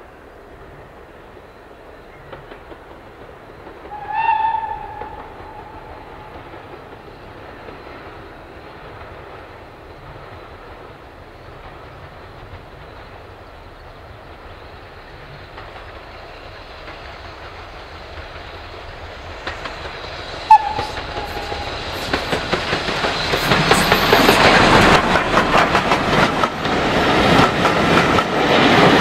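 SECR C class 0-6-0 steam locomotive No. 592 approaching with a train. Its whistle sounds about four seconds in, held for about a second, and gives a short peep about twenty seconds in. Then the engine and carriages pass close by, loud, with a rapid clickety-clack of wheels over the rails.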